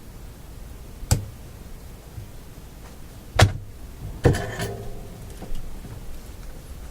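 Three sharp knocks of tools or metal parts being handled on a workbench; the last one rings briefly like struck metal. A low steady hum runs underneath.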